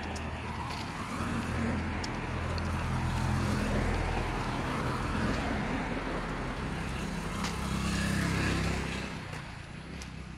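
Street traffic: a motor vehicle's engine running steadily as it passes close by, loudest through the middle and fading away about nine seconds in.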